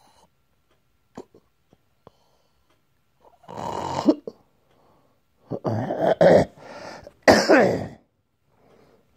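Three loud, rough snores about two seconds apart from someone asleep, after a few faint clicks.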